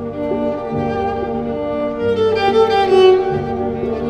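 Solo cello bowed, playing a slow melody of long held notes with a lower note sounding beneath it.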